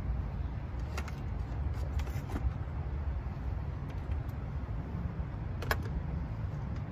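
A few sharp metal clicks and clinks of hand tools on engine parts while the throttle body bolts are being undone. The clearest click comes near the end, over a steady low rumble.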